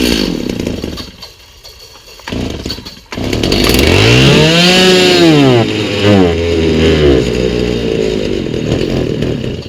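Stihl MS290 two-stroke chainsaw engine running, stumbling almost to a stop about two to three seconds in, catching again, revving up and back down twice, then dying right at the end. The new aftermarket carburetor is still being adjusted on its mixture screws, and the saw will not keep running once it drops back to idle.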